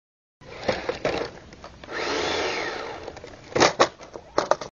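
Small electric motor and gearbox of an RC scale crawler truck whirring, its pitch rising and falling once, between sharp clicks and knocks of the truck working over the obstacle.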